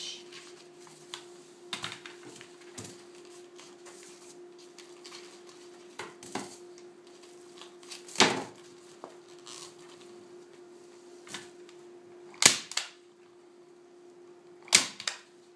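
Handheld staple gun firing staples into a wooden stretcher bar: a few sharp snaps spaced seconds apart, the loudest two near the end about two seconds apart. Between them come softer knocks of the canvas being folded and handled, over a faint steady hum.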